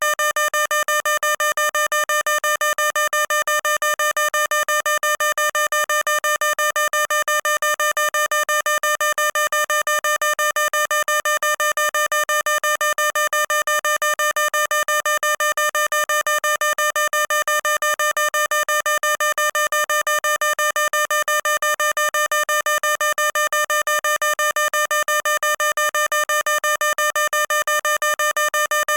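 Fire alarm sounding: one high-pitched electronic tone pulsing rapidly and evenly, without a break or change.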